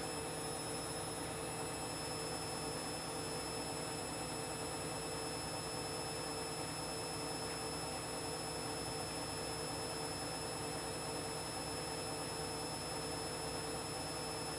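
Washing machine running: a steady, unchanging hum with a few constant high tones over an even background noise.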